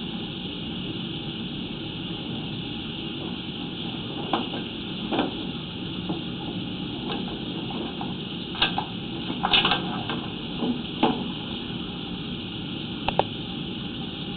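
Sewer inspection camera being pushed along a drain pipe: a steady hiss, with scattered knocks and clicks in the second half as the camera head and its push cable bump along the pipe.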